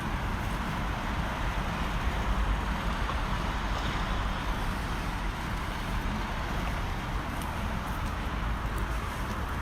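Steady outdoor city noise: distant traffic hiss with wind rumbling on the microphone.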